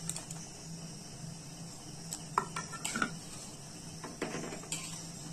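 A few faint, light clinks of a utensil against a metal cooking pot, about two, three and four seconds in, over a steady low hum and a steady high-pitched chirr.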